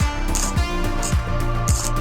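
Background music with a steady beat: kick drum about twice a second, bright cymbal hits and held instrumental tones.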